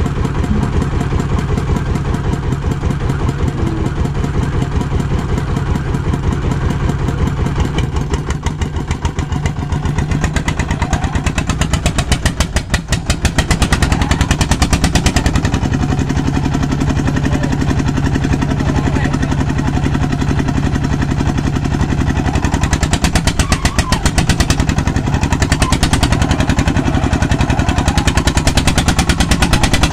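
Small engine of a rice threshing machine running steadily with a rapid, even thudding. Its note dips and picks up again about twelve seconds in.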